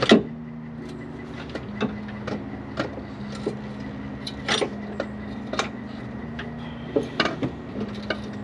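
Irregular clicks and knocks of tools and parts being handled during alternator work, the loudest right at the start, over a steady low hum.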